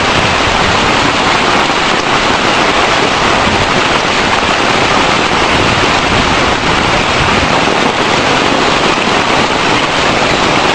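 Floodwater rushing in a swollen torrent, a loud, steady wash of water noise.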